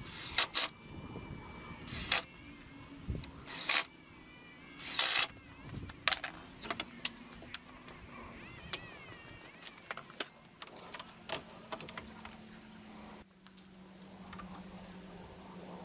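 Handling noises: four short scraping or sliding sounds in the first five seconds, with scattered light clicks, as of metal tool parts being moved and set. A faint low hum comes in near the end.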